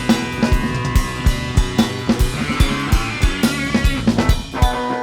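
Live three-piece rock band of electric guitar, bass and drum kit playing an instrumental passage. The drums drive it with steady kick and snare hits, about three a second, under sustained guitar and bass.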